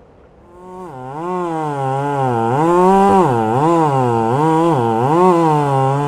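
Chainsaw being revved up and down over and over, its engine pitch rising and falling about once a second, starting about half a second in.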